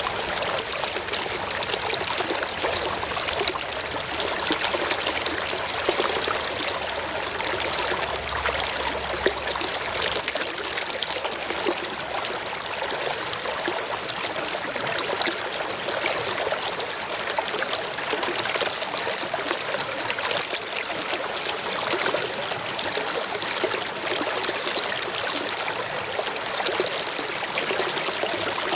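Stream water flowing and trickling steadily, an even splashing babble with no pauses.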